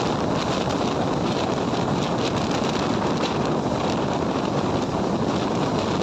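Steady rush of wind buffeting the microphone, mixed with the running noise of a moving passenger train, heard from outside the side of the coach.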